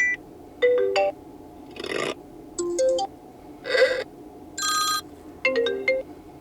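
Apple iPhone 15 Plus playing short previews of its built-in ringtones one after another: about six different melodic snippets, each cut off after under half a second as the next begins.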